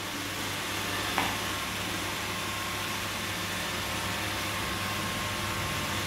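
iRobot Roomba 880 robot vacuum running as it drives itself back to its charging dock after its dock button is pressed: a steady whirring hiss with a low hum. A single short click comes about a second in.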